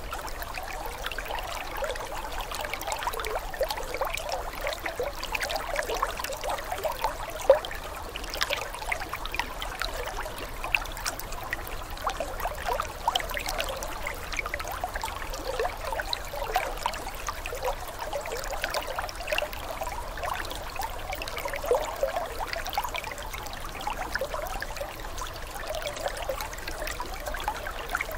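Aquarium water trickling and splashing steadily, as the filter's return stream falls into the tank and breaks the surface, with one louder splash about seven seconds in.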